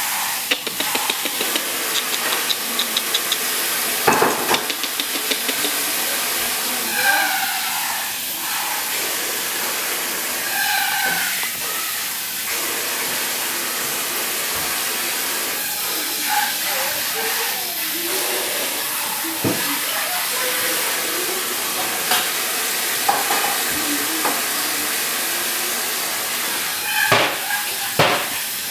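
A Cavalier King Charles Spaniel puppy and its mother playing over a toy on a tile floor: scattered clicks and knocks and a few short dog vocalisations over a steady hiss.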